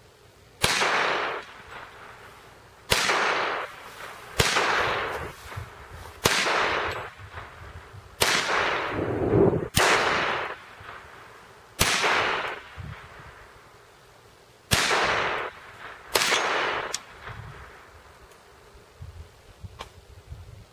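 Walther P22 .22 Long Rifle pistol fired nine times in slow, deliberate single shots about 1.5 to 3 seconds apart, each sharp crack trailing off in a short echo.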